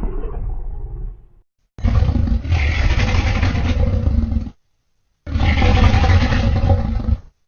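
Kaiju roar sound effects: the tail of one roar, then two long roars of about two to three seconds each, cut off abruptly with short silences between.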